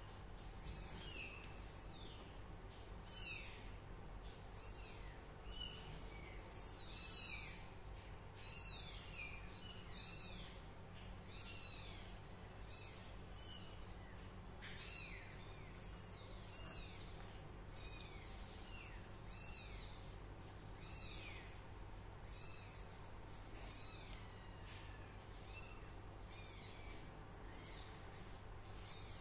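A kitten mewing over and over: short, high-pitched mews that slide downward in pitch, about one a second, the loudest one about seven seconds in.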